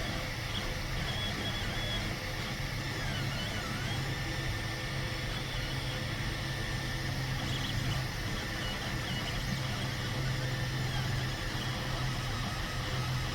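3D printer running a print, its stepper motors whining: a steady low hum under thin high tones that glide briefly up and down as the head moves.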